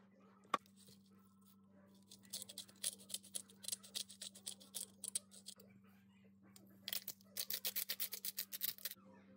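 A sharp single tap about half a second in, then a hand-twisted pepper mill grinding black pepper in two bouts of rapid, crunchy clicking, the second shorter.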